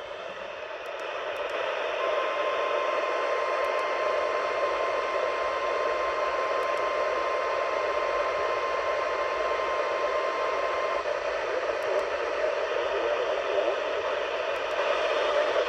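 NOAA Weather Radio 1050 Hz warning alarm tone for the weekly test: one steady tone starting about two seconds in and lasting about nine seconds, heard over a weak radio signal's static hiss, which carries on after the tone stops.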